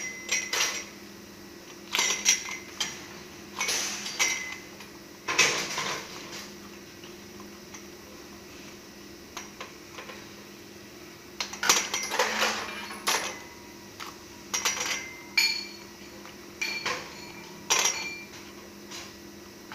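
Metal clanks and clinks from toggle clamps and metal mold parts being opened and handled. The knocks come in irregular clusters, with a quiet pause in the middle, and some strikes leave a short metallic ring. A steady low hum runs underneath.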